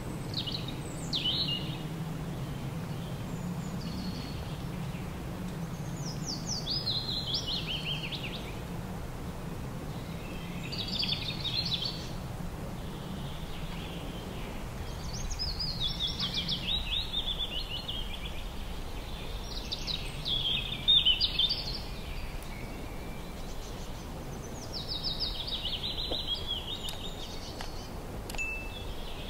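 Songbird singing short phrases of quick descending chirps, repeated every few seconds, over a steady low background rumble.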